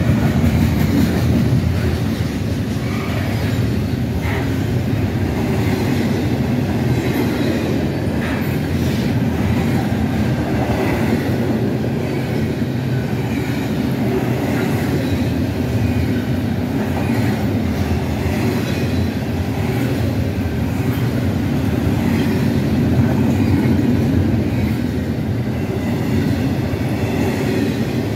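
Double-stack intermodal freight train's container well cars rolling past close by: a steady, loud rumble of steel wheels on rail, with faint wheel squeal now and then.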